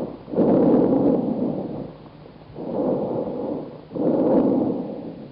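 Recorded tracheobronchial breath sounds: loud, harsh breaths in and out, each about a second long, with a distinct gap between one phase and the next.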